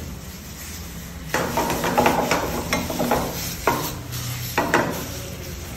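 Spaghetti in sauce sizzling as it is stirred and tossed in a hot stainless steel frying pan. A burst of sizzling and scraping starts about a second in, followed by two short, sharp sizzles as the pasta is tossed.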